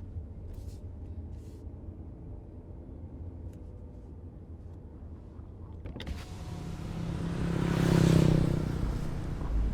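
Muffled, steady low rumble of vehicle and traffic noise heard from inside a Mercedes-Benz C300 W205 cabin. About six seconds in, the sound suddenly opens up much brighter and louder, and a passing vehicle swells and fades, loudest around eight seconds.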